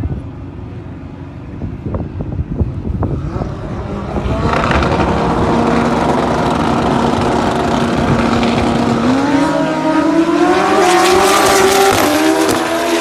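Drag-racing motorcycle engines, one of them a Hayabusa, start up loud about four seconds in. The revs are held at a steady pitch for a few seconds, then climb steadily in pitch and drop back near the end, as in a burnout with the rear tyre spinning.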